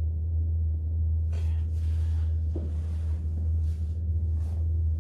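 A steady low hum, with a few faint soft rustles or taps over it.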